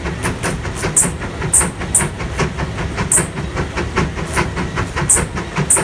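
Case 150 steam traction engine's exhaust barking in quick, even beats, about six or seven a second, with steam hiss, as the engine works under heavy load on a prony brake.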